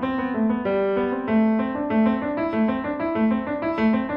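Background piano music: a melody of evenly paced notes over a lower accompaniment.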